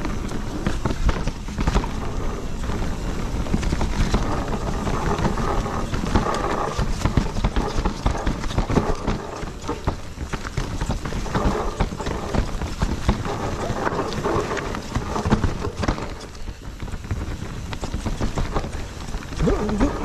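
Propain Ekano 2 CF electric mountain bike ridden over a rough, rooty trail: a constant clatter of the bike and its tyres over the ground, full of small knocks, over a heavy low rumble.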